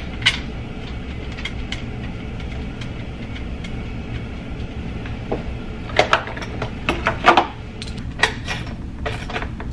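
Scattered sharp clicks and light clinks of a fuel rail and injectors being handled and pressed into a Vortec 5.3 intake manifold, more of them in the second half. A steady low hum lies under them.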